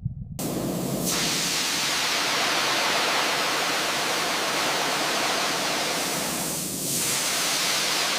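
Loud, steady hiss like a high-pressure air or spray jet. It starts abruptly about half a second in and dips briefly near the end.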